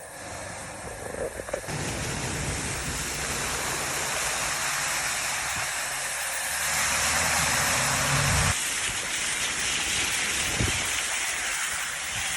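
Heavy rain pouring with a steady hiss. A low rumble runs underneath from about two seconds in and cuts off sharply a little past the middle.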